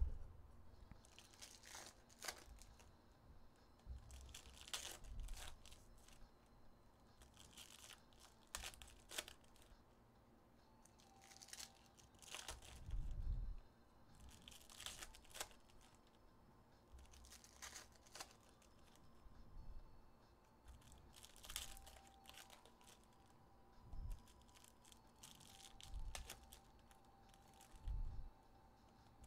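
2023-24 Panini Donruss Optic basketball hobby pack wrappers being torn open and crinkled, one pack after another. A short, faint rip comes every second or two. Between the rips there are a few soft thumps, the strongest about a third of the way through.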